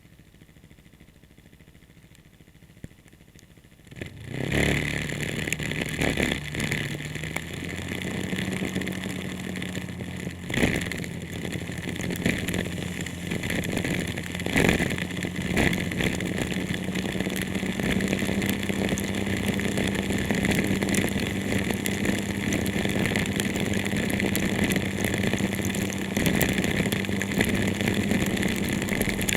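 A vehicle engine starts about four seconds in and then runs steadily, with a steady hiss over it and a couple of sharp clicks.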